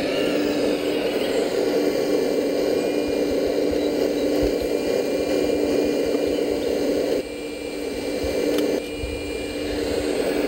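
Electric-driven hydraulic pump of a scale RC Liebherr 970 SME excavator running with a steady whine. It dips in level for a couple of seconds past the middle and then picks back up, as the hydraulic load changes while the boom and bucket move.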